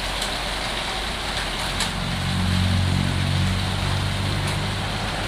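Wet concrete sliding down a mixer truck's chute and pouring onto the ground, a steady rushing hiss. From about two seconds in, a low engine hum joins it, loudest around three seconds in.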